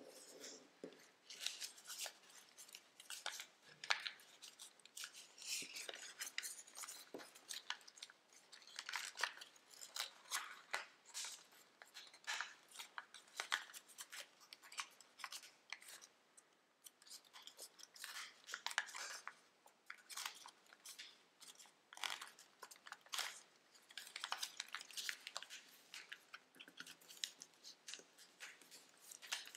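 A sheet of origami paper rustling and crackling as hands fold it and press its creases flat, in a run of short, irregular, crisp crackles.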